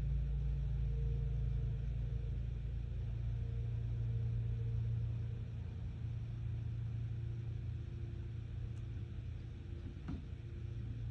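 Steady low rumble with a hum, like a running engine or machine, with one faint click about ten seconds in.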